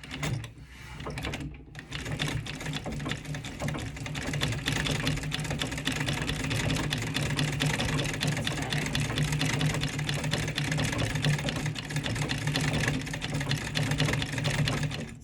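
Early-1900s National treadle sewing machine with a vibrating shuttle, stitching at a steady, rapid pace: a fast, even ticking run of the needle and shuttle mechanism. It starts at once, pauses briefly about a second and a half in, then runs without a break and stops near the end.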